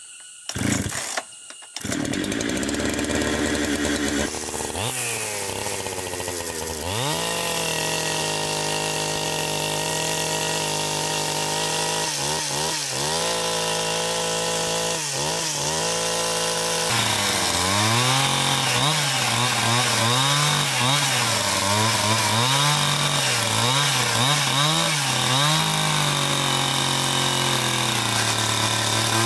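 Two-stroke chainsaw pull-started, revving up and holding a steady high whine, then ripping lengthwise along a log. In the cut its engine note dips and recovers again and again under the load.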